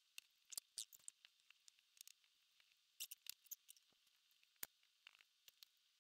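Faint, scattered small clicks and ticks at an uneven pace, a few coming close together about three seconds in.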